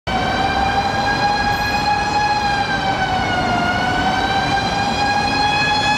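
Tokyo Fire Department fire engine's siren wailing on a high, nearly steady pitch that sags a little about halfway through and climbs back, over a low rumble of city traffic.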